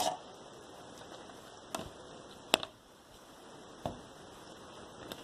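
Slime being squeezed and stretched in the hands, giving a few faint, short clicks and pops, three in all; it makes only a little noise.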